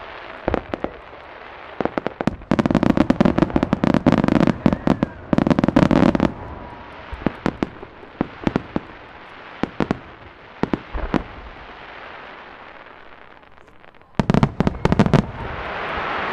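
Starmine fireworks barrage: rapid salvos of aerial shell bursts, densest a few seconds in, then scattered single bangs, and another quick volley near the end.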